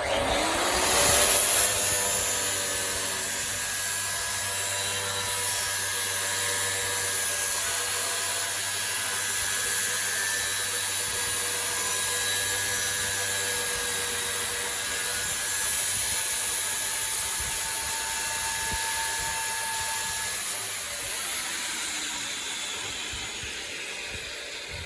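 Handheld electric power tool spinning up and then running steadily at high speed, a high whine with hiss; it eases off slightly near the end.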